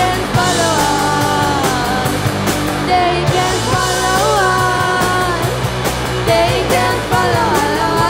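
Live rock band playing: a woman sings lead into a microphone over electric guitar and drums, with cymbal and drum hits throughout.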